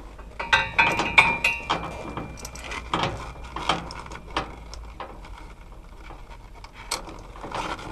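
Steel tie-down chain clinking and rattling as it is handled and hooked in place, link against link. A dense run of ringing metallic clinks comes about half a second to two seconds in, followed by scattered single clicks.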